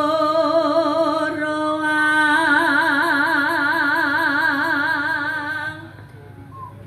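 A woman singing one long held note into a microphone, amplified, with a vibrato that grows wider in its second half. The note stops a little before six seconds in.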